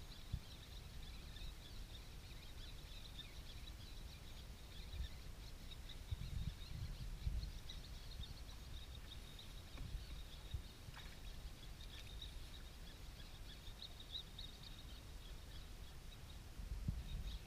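Faint outdoor ambience: an uneven low rumble, typical of wind on the microphone, with a faint thin high chirping above it.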